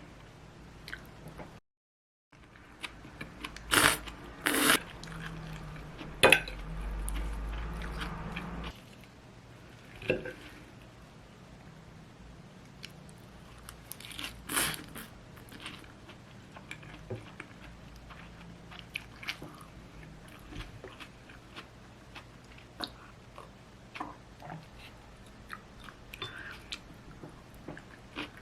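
Close-up eating sounds: chewing and crunchy bites, with a few sharp clicks and knocks. A low hum runs for a few seconds early on.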